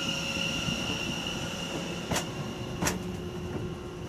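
London Overground Class 710 electric train drawing slowly into the platform, its wheels giving a steady high-pitched squeal. Two sharp clicks sound about two and three seconds in.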